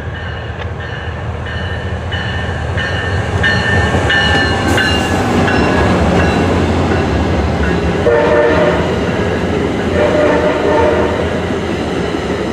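MARC MP36PH-3C diesel locomotive passing at speed: engine rumble, with high tones that drop in pitch as it goes by about five seconds in. Then bilevel passenger coaches roll past, their wheels clattering on the rails.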